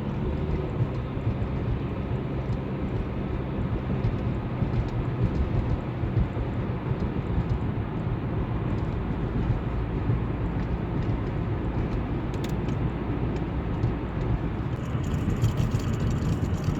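Car driving on a snowy road: steady engine and tyre rumble, with a hiss growing louder near the end.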